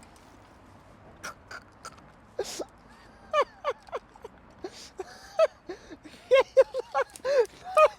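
An animal calling in short, repeated barking calls, a few at first, then faster and louder from about six seconds in.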